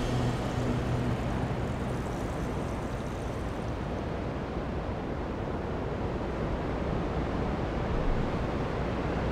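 Steady rush of ocean surf and wind.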